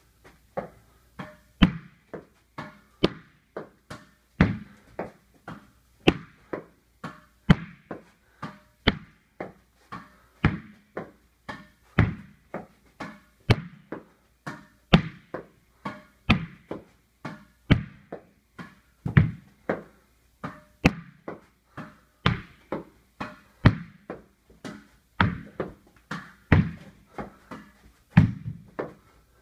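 A tennis ball hit over and over with a racket and rebounding off the walls and floor of a small room: a steady run of sharp hits and bounces, about one to two a second, echoing in the room.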